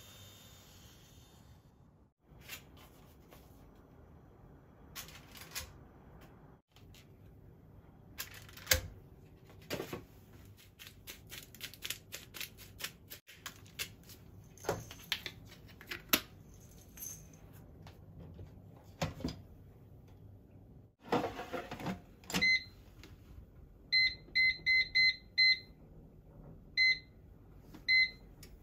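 Scattered clicks, knocks and rustles of food being handled in an air fryer basket, then a run of about eight short electronic beeps as the air fryer's touch buttons are pressed to set the cooking time.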